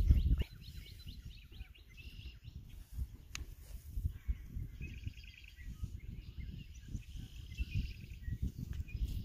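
Small birds chirping and singing in the background, in quick series of short chirps and warbles, over a low, gusting rumble of wind on the microphone.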